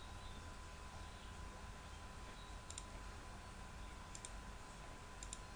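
Computer mouse left button clicking: three quick pairs of clicks, about a second apart, over a faint steady background hum.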